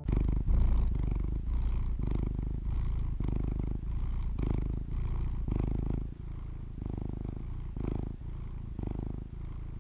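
Domestic cat purring close up, a low steady purr that swells and eases in even pulses with each breath, a little softer in the second half.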